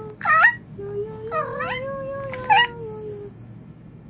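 Domestic cat meowing three times, short calls about a second apart that bend in pitch, over a long steady low tone that runs beneath them.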